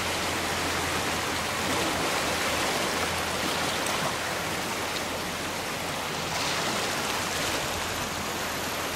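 Steady rushing of the flooded Conestoga River's fast-moving high water.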